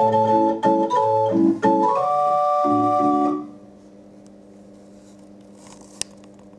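MIDI-controlled pipe organ with wooden pipes playing quick chords, ending on a held final chord that cuts off about three and a half seconds in. A faint steady hum remains after it, with a single sharp click near the end.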